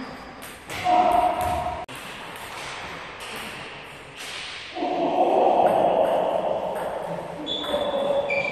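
Table tennis ball clicking off rackets and bouncing on the table during a doubles rally, in a large sports hall. A louder stretch of hall noise comes in about halfway through.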